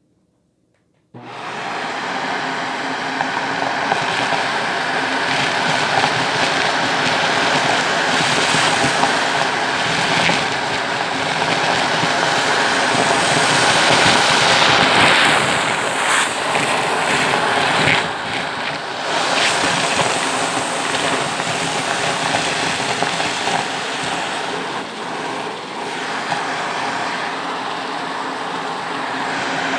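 Shark vacuum cleaner switching on about a second in and running steadily: a motor whine over a loud rush of air, with scattered clicks and rattles as small beads and debris are sucked up through the wand.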